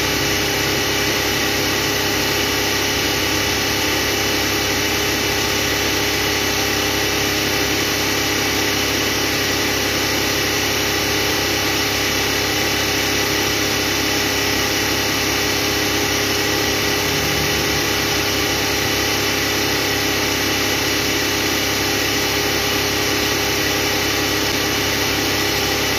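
Suzuki Every engine idling steadily at operating temperature, its electric radiator fan not yet running as the coolant climbs toward the fan's cut-in point of about 210 °F.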